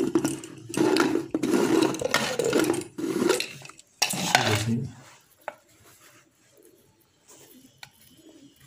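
An aluminium pressure cooker and its lid being handled. There are several stretches of metal scraping and knocking in the first five seconds, then it goes quieter with a couple of light clicks.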